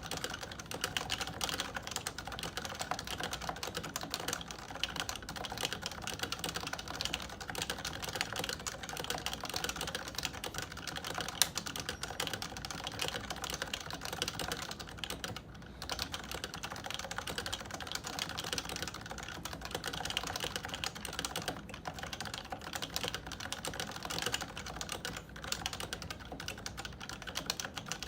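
Continuous fast typing on a Topre electrostatic-capacitive keyboard: a dense, unbroken stream of key strokes, with one stroke louder than the rest about eleven seconds in.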